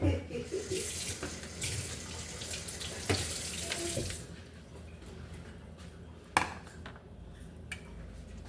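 Water running from a kitchen tap into a sink for about three and a half seconds, then shut off abruptly. A few sharp knocks follow, one loudest about six seconds in.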